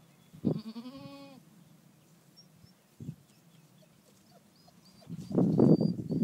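A Nubian goat bleats once, a call of about a second with a slight rise and fall, half a second in. Near the end, loud irregular rustling noise takes over.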